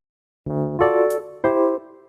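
Music: after about half a second of dead air, three keyboard chords are struck in turn, each ringing on and fading away.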